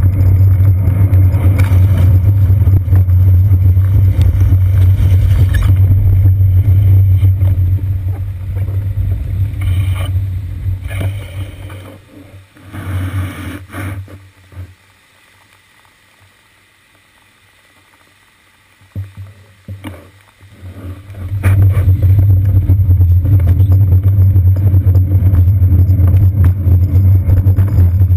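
Loud, steady low rumble of a bicycle riding on wet city pavement, carried through the seat-post camera mount. It fades away about eight seconds in as the bike slows and stops, stays low for several seconds, and comes back at full strength about twenty-one seconds in as riding resumes.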